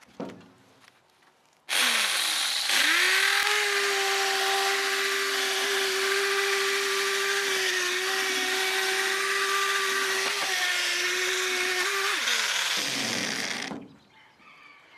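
Cheap corded electric drill with a wire brush scouring rust off a steel mower deck. The motor starts about two seconds in, its whine rising to a steady pitch over the scratching hiss of the wire on metal. Near the end it winds down, the pitch falling, and stops.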